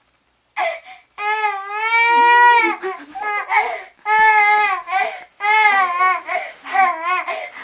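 Baby crying hard in a run of high-pitched wails: a short cry about half a second in, then a long wail of about two seconds, then several shorter ones. The crying is a reaction to seeing someone yawn.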